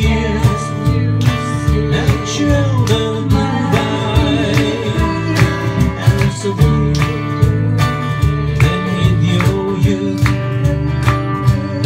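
Small live acoustic band playing a song: acoustic guitar strumming together with mandolin and electric guitar, with a sung vocal line.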